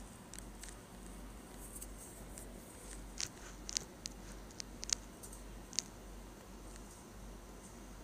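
Quiet room tone with a steady low hum, and a short run of small, sharp clicks between about three and six seconds in.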